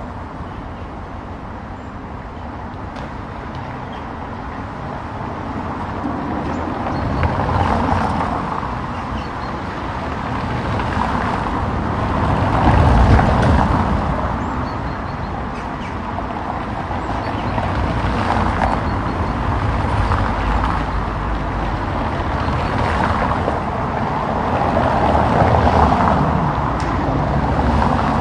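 Road traffic on a paved city street: a steady hum of cars, with several vehicles passing close by, each swelling up and fading away, about five in all.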